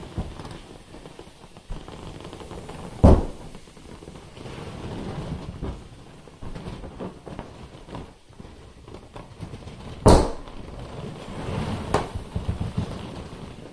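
Two sharp pops, about seven seconds apart, as a pin punctures an inflatable vinyl pool toy, with the vinyl rubbing and creaking as it is handled in between.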